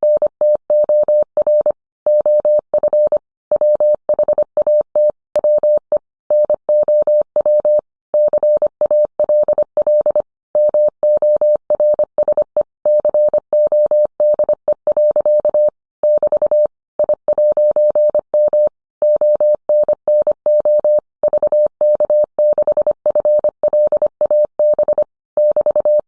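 Morse code sent as a single steady beep tone, keyed on and off rapidly in dits and dahs, with short pauses between letters and words.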